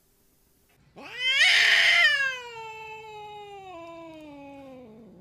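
Cat yowling: one long drawn-out call that swells loud about a second in, then slowly falls in pitch over some three seconds.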